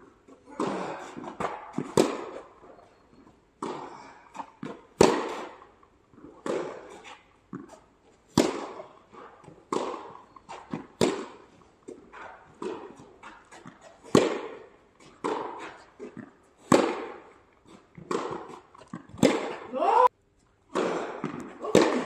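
Tennis ball being struck by rackets and bouncing on the court in a rally, a sharp pop every one to two seconds.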